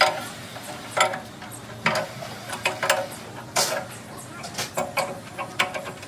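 Metal clicks and clinks from a large hand wrench working a socket on a bolt at a road roller's drum hub, about one a second, each with a short metallic ring.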